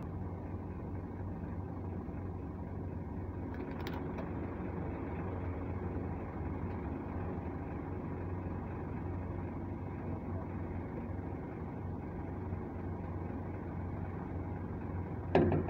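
The diesel engine of a UD boom truck runs steadily as a low hum while it powers the UNIC crane during a lift. A brief, louder sound stands out just before the end.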